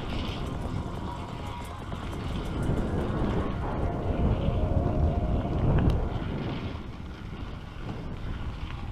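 Wind buffeting the microphone of a camera on a moving bicycle, mixed with the rumble of the tyres over broken asphalt; it grows louder in the middle and eases off again.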